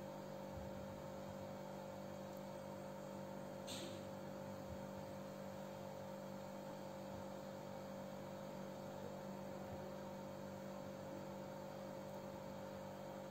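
Faint steady electrical hum throughout, with one brief light click about four seconds in.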